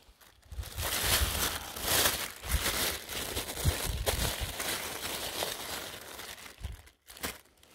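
Thin plastic carrier bag crinkling and rustling irregularly as a hand rummages among frozen fish inside it, dying away near the end.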